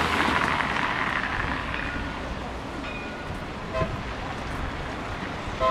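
City street traffic: a car passing close by, its tyre hiss loudest in the first second and fading away, over a steady background hum of traffic. Two short pitched sounds break in, about four seconds in and again near the end.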